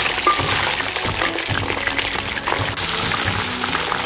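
Hot oil sizzling and crackling around a whole yellow croaker frying in a wok, over background music.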